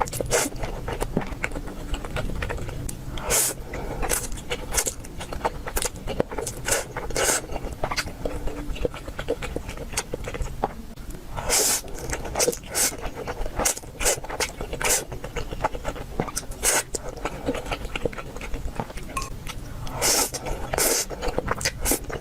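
A person eating close to the microphone: irregular chewing and biting noises, a few sharper bites standing out above the rest.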